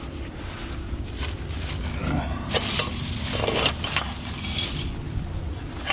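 Plastic bags rustling and light clinks as gloved hands rummage through a bag of discarded household items and toys, over a steady low hum.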